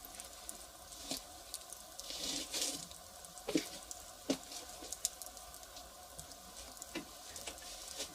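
Firewood fire crackling, with irregular sharp pops and snaps from the burning wood and a short hissing swell about two seconds in.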